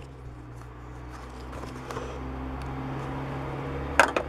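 Steady low hum that slowly grows louder, with faint ticks of handling and a short sharp clatter about four seconds in as the torn plastic blister pack and the die-cast toy car are handled.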